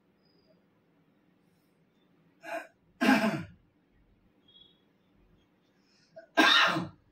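Two sudden bursts of a person's breath and voice, about three and a half seconds apart, each with a short catch just before it.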